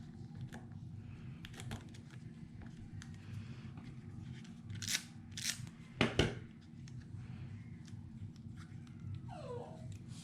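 Paper crafting sounds as die-cut paper pieces are handled and tucked under a layout: light clicks and paper rustles, two louder rustles about five seconds in, then a sharp tap on the work surface just after.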